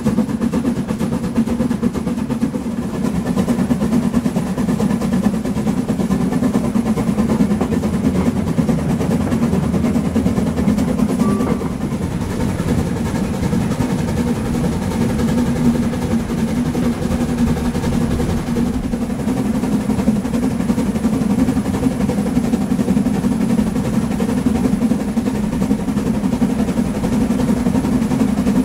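Metre-gauge steam locomotive running steadily at speed, heard from just behind the engine: an even, unbroken mix of exhaust beats, running gear and wheels on the rails.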